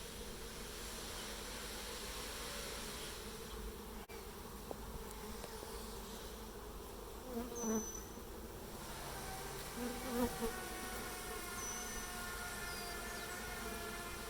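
Honeybees buzzing in an open hive: a steady hum from many bees, with a couple of brief louder swells about halfway through.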